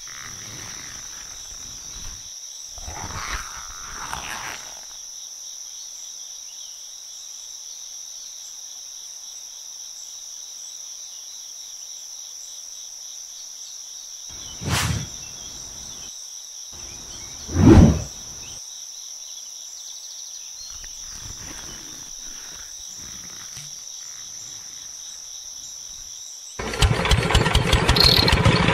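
A steady high-pitched whine, with two brief bumps about 15 and 18 seconds in. Near the end a miniature diesel-engine water pump starts up and runs with a loud, fast, even clatter.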